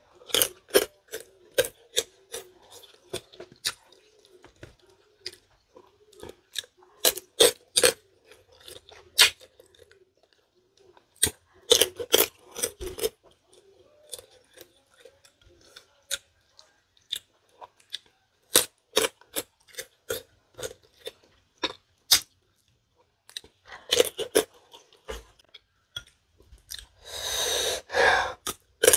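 Close-miked chewing of fresh green tamarind pods, with many sharp, irregular crunches and mouth clicks. Near the end there is a longer, louder sound lasting about a second.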